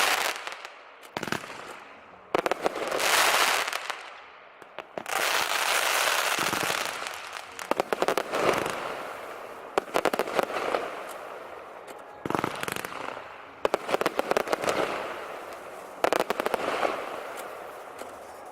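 Aerial fireworks bursting in repeated volleys: a sharp bang every two to four seconds, each followed by a long spread of crackling.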